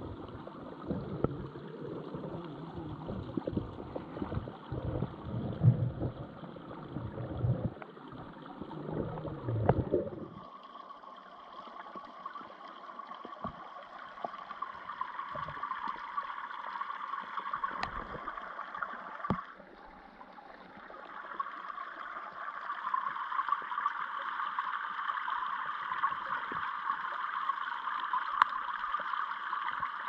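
Muffled underwater sound in a waterfall pool. For about the first ten seconds there is irregular sloshing and gurgling with bumps as the camera moves through the water. After that comes a steady rushing hiss of falling water, heard under the surface.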